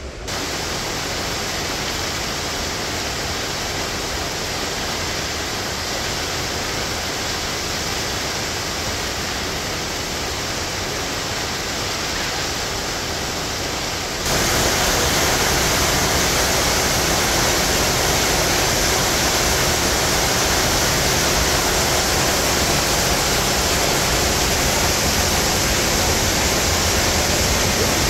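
Waterfall pouring into its plunge pool: a steady rushing of water that suddenly gets louder about halfway through.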